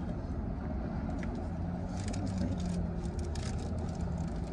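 Steady low hum inside a car's cabin, with light crinkling and scraping from about two seconds in as a cardboard air freshener is tied onto the rear-view mirror.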